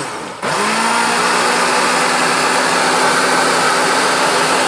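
A Mondial 900 W blender motor running at speed 2 with only water in the jar. It comes up to speed about half a second in, then runs with a steady hum.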